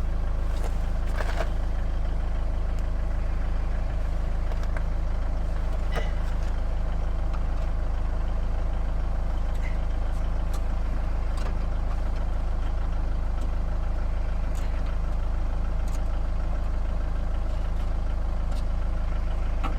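Steady low engine-like hum with no change in level, with a few faint clicks and knocks of the door's plastic glass-retaining clips being pushed in and pulled out.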